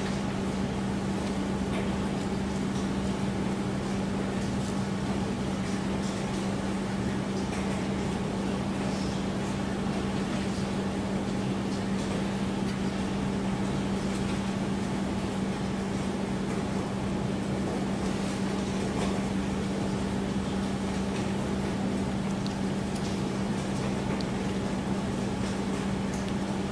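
Steady room hum and hiss with one constant low tone, unchanging throughout: machine-like background noise of the room, with no speech.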